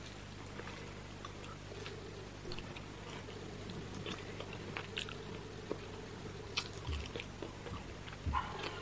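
Close-miked chewing and wet mouth smacks of a person eating roasted chicken pulled by hand, with small scattered clicks over a steady low hum.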